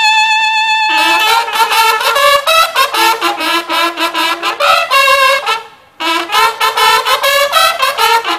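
Music led by trumpet-like brass: a held note gives way about a second in to a quick run of short notes, breaking off briefly a little before halfway through the second half, then starting again.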